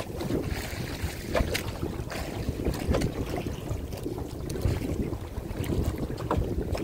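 Wind buffeting the microphone in an uneven rumble, with scattered light clicks and knocks.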